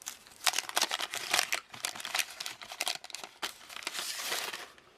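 Wax-paper wrapper of a 1988 Topps football card pack crinkling and tearing as the pack is opened, in a run of quick crackles that stops shortly before the end.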